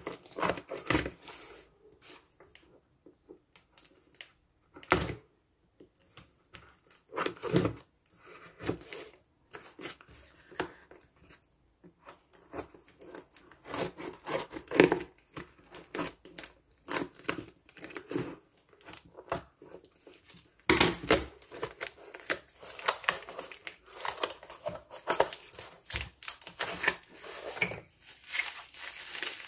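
Scissors cutting and slitting the packing tape on a cardboard box, with tape tearing and cardboard scraping and flapping in irregular bursts. Near the end, plastic bubble wrap crinkles as the wrapped item is lifted out and handled.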